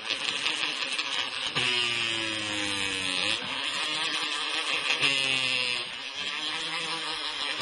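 A small electric motor running, its pitch slowly sagging and jumping back up about every two seconds, over a steady grinding hiss.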